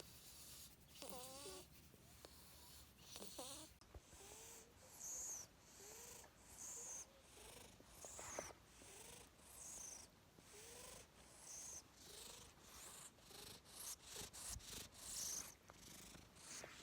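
Domestic cat purring softly in a repeating breath rhythm, about one breath a second, with a couple of short warbling trills in the first few seconds.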